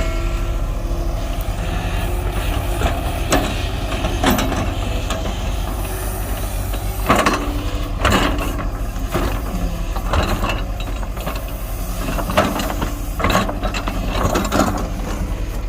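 Diesel engine of heavy earthmoving machinery running steadily, with repeated short metallic clanks and squeaks from the machine's moving parts.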